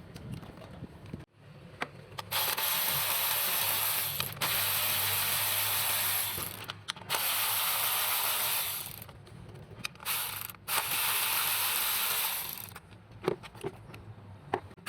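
Power ratchet run in four bursts of about two seconds each, a steady whirring hiss, with a few small clicks near the end.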